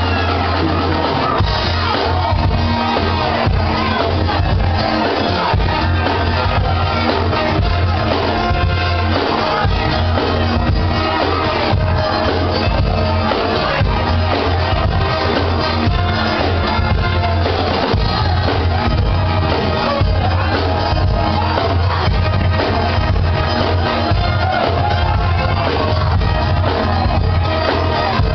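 Live disco-funk band playing with singing, a steady dance beat and heavy bass, with audience shouts and whoops over it, heard loud from within the crowd.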